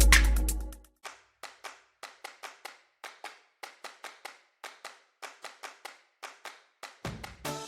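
Background electronic music thins out to a sparse run of short, dry percussive clicks, roughly three or four a second with no bass, before the fuller track comes back near the end.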